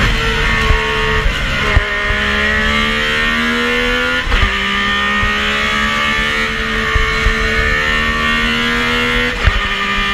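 Metro 6R4's 3.0-litre V6 rally engine heard from inside the cabin, pulling hard under full throttle. Its pitch climbs steadily and then drops sharply at each upshift, three or four times.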